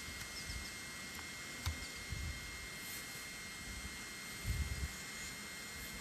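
Steady hiss with a faint, constant high whine, broken by a few short low buffets of wind on the microphone, around two seconds in and again near five seconds.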